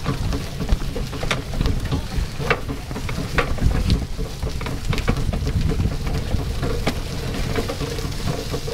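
Cycle rickshaw rolling over a rough dirt lane, its frame and fittings rattling with irregular clicks and knocks over a steady low rumble.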